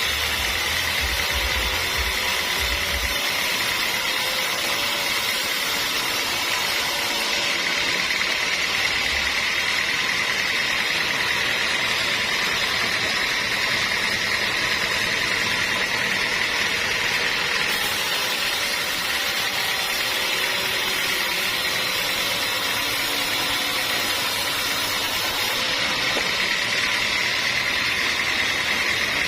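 Sawmill saw running steadily and sawing through hard, dense acacia wood.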